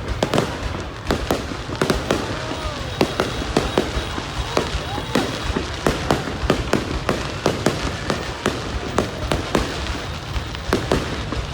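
Fireworks display: a dense, continuous run of sharp bangs and crackles, several a second, over a steady low rumble.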